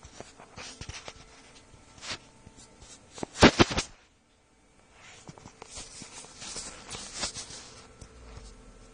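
Handling noise from a phone camera being moved around: scattered clicks and rustling, with a loud burst of sharp clicks about halfway through and a second stretch of rustling near the end.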